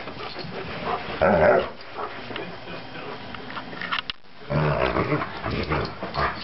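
Alaskan Malamute vocalizing in play with low growls, loudest about a second in, pausing briefly, then starting again with more growling and vocalizing.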